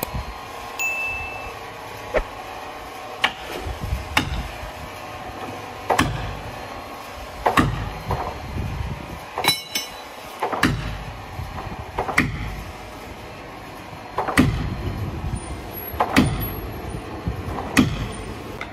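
Repeated heavy knocks, one every one to two seconds, each followed by a short low rumble. One knock near the middle rings with a metallic tail. A steady faint hum runs underneath.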